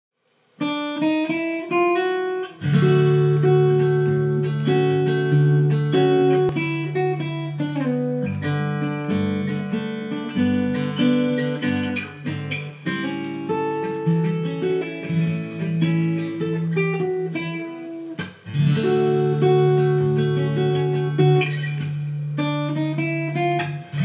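A duet of two Seagull acoustic guitars, fingerpicked: a melody of plucked single notes over chords with sustained bass notes. It begins about half a second in with a lighter opening, fills out with bass after a couple of seconds, and breaks off briefly a little past the middle before carrying on.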